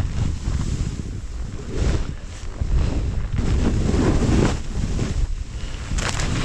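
Wind buffeting the microphone: a loud low rumble that surges and eases in gusts, with brief hissing rushes, the strongest about four seconds in and just before the end.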